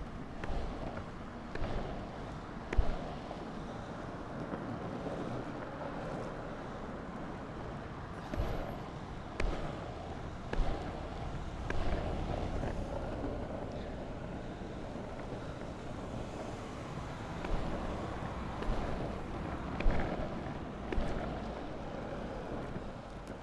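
Longboard wheels rolling on asphalt with a steady rumble, with wind on the microphone. Three times there is a run of sharp scuffs about a second apart as a foot pushes off the road.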